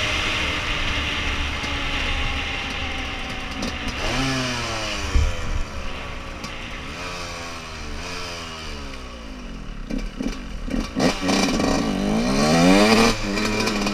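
Yamaha YZ125's two-stroke single-cylinder engine under way: it revs up briefly about four seconds in, then its pitch falls away for several seconds as the bike slows, then climbs in a few sharp revs near the end, the loudest part. Wind rushes over the microphone in the first few seconds.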